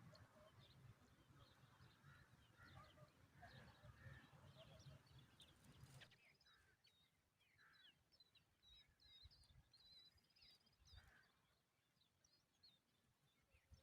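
Faint high chirps and short trills of small birds. A low hum runs under the first half and cuts off abruptly about six seconds in.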